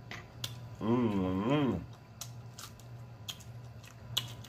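A person eating with the mouth closed: wet lip-smacking and chewing clicks, and about a second in a hummed "mmm" of enjoyment lasting about a second, its pitch dipping and rising again.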